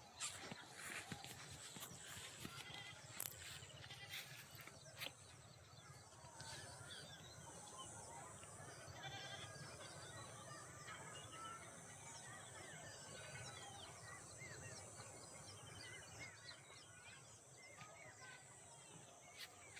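Insects chirping steadily in a high-pitched drone, with fainter scattered chirps and calls beneath it and a few light clicks in the first few seconds.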